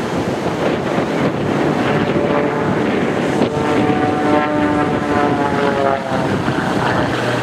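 Extra 300 aerobatic plane's six-cylinder engine and propeller heard from the ground, its note sliding down in pitch over the middle seconds as the plane manoeuvres. Heavy wind buffets the microphone throughout.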